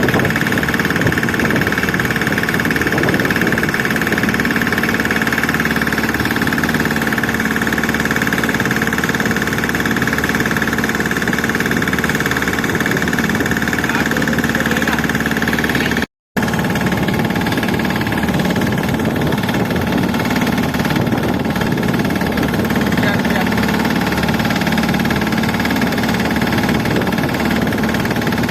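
An engine running steadily with an even drone. The sound drops out for a moment about 16 seconds in, then carries on unchanged.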